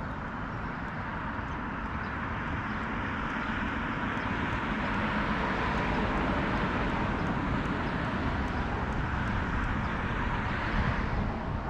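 Rushing engine noise of a passing vehicle, swelling slowly over several seconds and falling away near the end.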